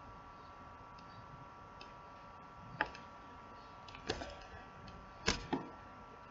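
Four sharp computer-mouse clicks, the last two close together, over a faint steady electronic whine.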